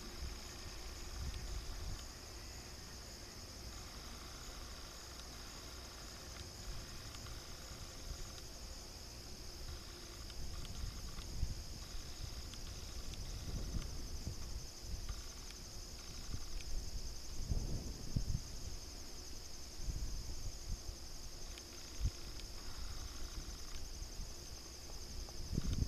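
Insects buzzing steadily at a high pitch over a faint low rumble from the distant, approaching Loram rail grinder, with the rumble swelling briefly about two-thirds of the way through and again near the end.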